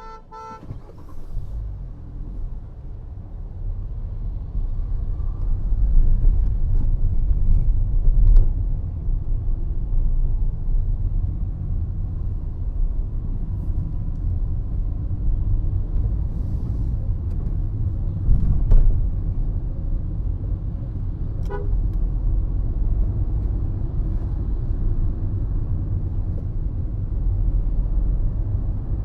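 Car driving: a steady low rumble of engine and road noise that builds over the first few seconds as the car picks up speed. A car horn toots briefly at the very start and again about three-quarters of the way through.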